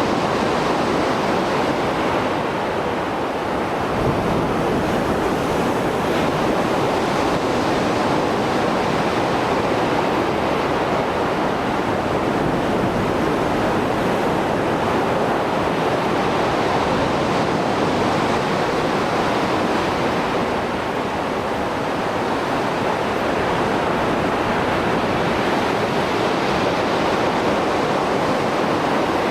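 Mediterranean Sea waves after a storm, surf breaking and washing on the shore in a continuous rush that swells and eases every several seconds.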